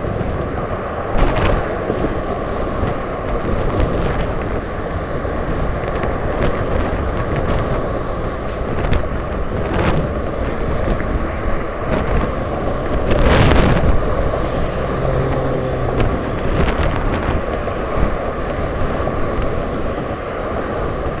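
Wind rushing over the microphone of a camera moving along the bridge path, mixed with the steady noise of road traffic passing close by. A few sharp knocks come through, and the noise swells briefly about two-thirds of the way through.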